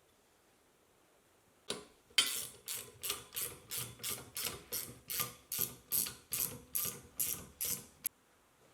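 A metal tool or mechanism being worked in a long run of even ratcheting strokes, about three a second, during final assembly of a leg vise on its stand. A single click comes first, and the strokes start about two seconds in and stop shortly before the end.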